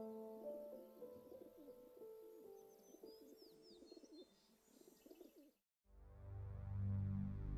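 Quiet birdsong chirps and dove-like cooing over a soft, slowly fading held chord. After a brief silence near the end, a low pulsing hum swells in.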